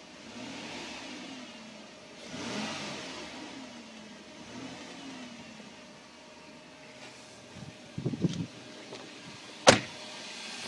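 Chrysler Voyager 3.3-litre V6 running on petrol with home-made HHO (hydrogen-oxygen gas) fed into its air intake, revved lightly a few times, each rise and fall in pitch slow. Some handling knocks come a little after halfway, then near the end one sharp bang, a car door shutting.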